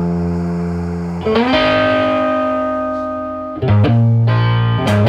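Background music: guitar chords struck and left ringing, with a new chord about a second in and another near four seconds in.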